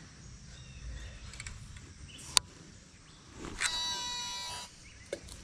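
A sharp click, then about a second later a Shimano Antares DC baitcasting reel whines for about a second as the line goes out on a cast. Its digital braking system makes a high electronic tone that slides in pitch.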